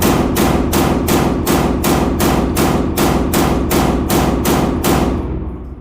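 Glock 43X 9mm pistol fired in rapid succession in a magazine dump: about fourteen shots at a steady pace of roughly three a second, stopping about five seconds in.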